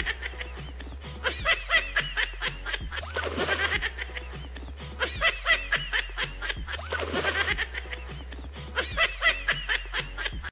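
High, giggling laughter in short bursts that recur every couple of seconds, over a low steady hum.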